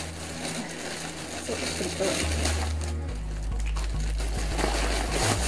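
Plastic mailer bag rustling and crinkling as it is pulled open and handled, over background music with a low bassline.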